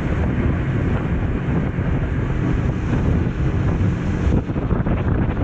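Wind buffeting the microphone on a small open motorboat under way, over the boat's motor and water rushing against the hull. A steady, dense rumble.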